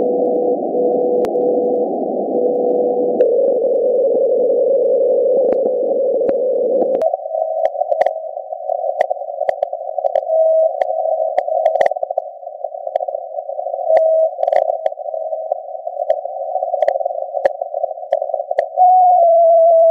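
VLF radio reception from a loop antenna, turned into audio by receiver software: hiss with short beeps in groups of three that repeat every three to four seconds, the pulses of the Russian RSDN-20 (Alpha) navigation transmitters, broken by sharp clicks of lightning static (sferics). About seven seconds in the hiss narrows to a thinner, higher band, and near the end a louder tone comes in, wavering and sliding down in pitch.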